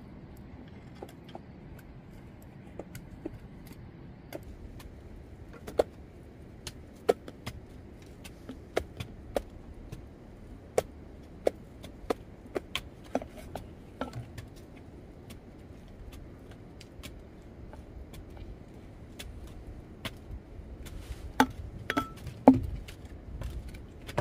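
Sharp chopping strokes, irregular at roughly one or two a second, thinning out midway and coming back as a few louder knocks near the end.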